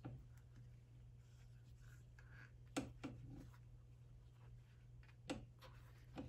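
Faint rustling and a few soft taps of cotton fabric being handled and shifted on a sewing-machine table, over a steady low hum.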